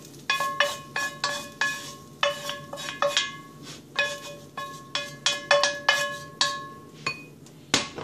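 A metal utensil knocking and scraping against a cast-iron skillet as the fried fiddleheads are emptied into a bowl. It makes a quick run of ringing clinks, roughly three a second.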